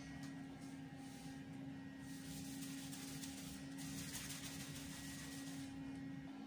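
Wet paper napkin rubbed back and forth on a ceramic floor tile: a soft scrubbing that starts about two seconds in and stops shortly before the end, over a steady low hum.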